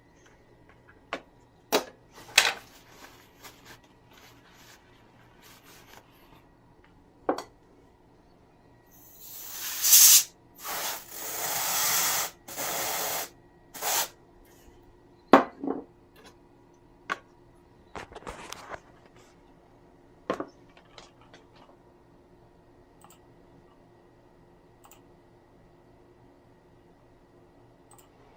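Aerosol can sprayed onto a bare CPU to cool it, in several hissing bursts of a second or two each in the middle of the stretch. Scattered sharp clicks and knocks of handling come before and after.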